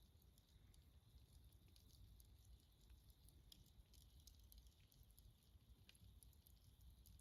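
Faint crackling and popping of a wood campfire: many small irregular clicks over a low rumble.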